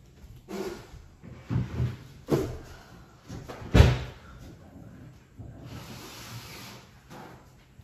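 A few separate knocks and thumps of things being handled, the loudest about four seconds in, followed by a soft hiss lasting about a second and a half.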